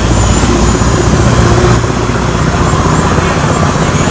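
A motor vehicle's engine running steadily, a loud low rumble that eases slightly about two seconds in. Small birds chirp high and thin over it.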